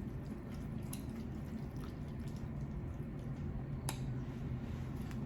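Wet, squishy eating sounds from a seafood boil, with three short sharp clicks about one, four and five seconds in, the middle one the loudest, over a steady low hum.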